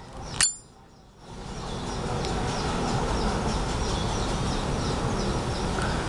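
Brass Zippo lighter lid flipped open with its metallic ping, a single click that rings briefly, about half a second in. A steady background hiss follows from about a second in.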